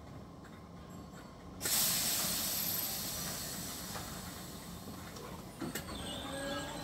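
Merseyrail electric train standing at the platform: a sudden loud hiss of released compressed air starts about a second and a half in and slowly fades. Near the end comes a short clunk, followed by a faint steady tone.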